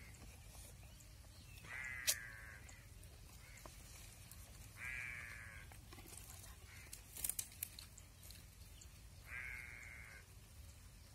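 An animal calling three times, each call drawn out for about a second with a wavering pitch, with a sharp click about two seconds in and a quick cluster of clicks about seven seconds in.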